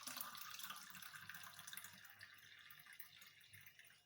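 Faint trickle of thick blended lemon juice being poured, slowly tapering away over a few seconds.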